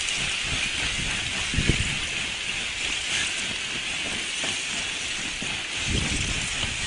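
Lake ice shove: wind-driven sheets of lake ice grinding and crunching ashore with a steady hissing rush, and a couple of dull low knocks about one and a half and six seconds in.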